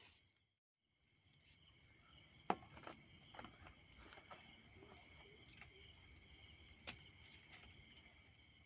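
Steady chorus of insects such as crickets, in several high bands, starting after a brief gap near the start. A few sharp clicks and taps stand out over it, the loudest about two and a half seconds in.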